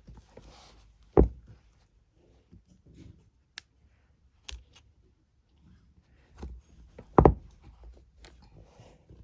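Roller-skate bearing and wheel being handled and pressed into place by hand: two sharp knocks about six seconds apart, with a few lighter clicks and rustles between.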